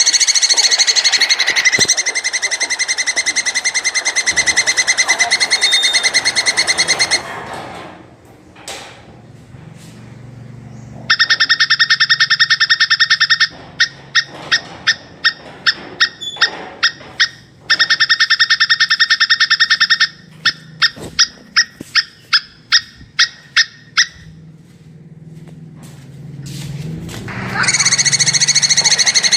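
Plantain squirrel's (coconut squirrel's) mating call: high, rapid chattering trills in long runs, alternating with strings of separate sharp chips about three to four a second. The first trill lasts about seven seconds, and after a pause the trills and chip strings alternate, with another long trill starting near the end.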